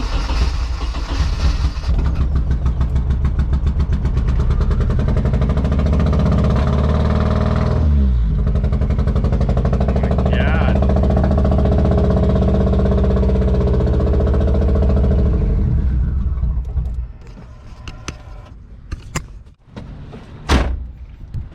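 Turbocharged KA24DE four-cylinder of a Nissan 240SX S13 running under throttle with a misfire, which the owner suspects is a dirty injector. It stumbles briefly about eight seconds in, recovers, then stops about seventeen seconds in. A few sharp clicks or knocks follow near the end.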